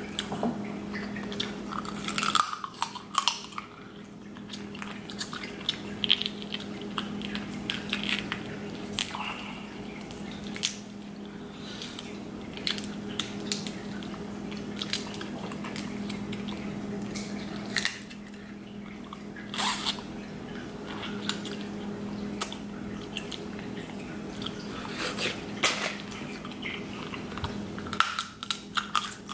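Close-miked eating of sauce-covered snow crab legs: irregular sharp cracks and snaps of shell being broken by hand, with wet squishing, sucking and chewing. A steady low hum runs underneath.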